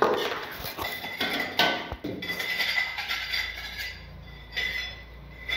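Metal ladle clinking and scraping against an aluminium cooking pot, with a few sharp knocks in the first two seconds.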